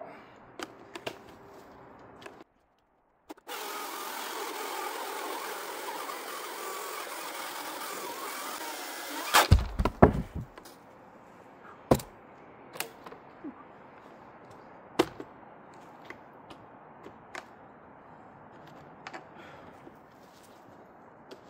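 Greenworks Commercial Optimus OCS800 cordless electric chainsaw with a 56-inch bar cutting through a large log for about six seconds: a steady chain-in-wood noise with no engine note. It ends in a few loud heavy thuds as the cut round of wood drops, then faint scattered knocks.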